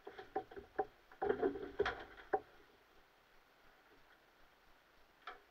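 Handling noises inside a bare fibreglass hull: a quick run of knocks and clicks as tools and gear are shifted about, then one more click near the end.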